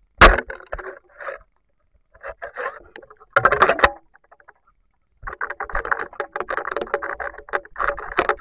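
Water splashing and sloshing as a hand thrashes in a shallow stream to grab a speared giant freshwater prawn, in irregular bursts that become a dense, continuous churning about five seconds in. A single sharp knock sounds just after the start.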